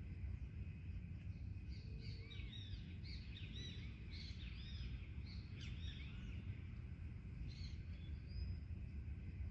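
Forest birds calling and chirping, with a dense flurry of quick arching calls in the middle, over a steady low background rumble.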